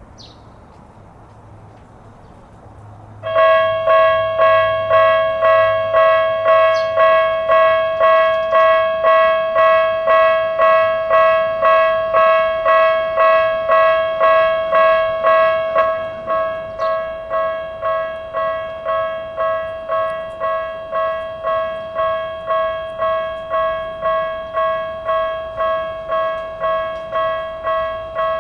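Japanese level-crossing electronic warning bell of the Tokyu-style type, starting about three seconds in and ringing in steady repeated strikes, roughly one and a half a second. About two-thirds of the way through it drops to a lower volume and keeps ringing.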